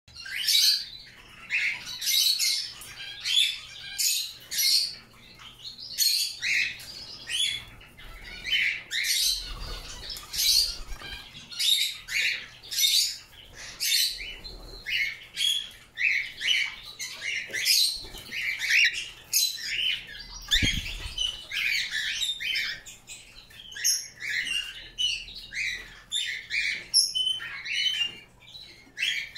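Canary bathing in a shallow dish of water, splashing and fluttering its wings in short, quick bursts, roughly one or two a second with brief pauses between.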